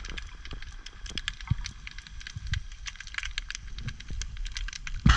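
Underwater sound on a shallow wreck: a dense, irregular crackle of small clicks over a low rumble of moving water.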